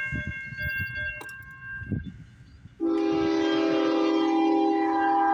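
A freight train rumbles past, then about three seconds in a locomotive's air horn sounds a loud multi-note chord, starting suddenly and held steady for nearly three seconds.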